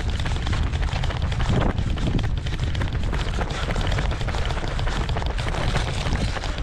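Wind buffeting a head-mounted camera's microphone with a constant heavy rumble while the wearer runs, footfalls on pavement tapping through it.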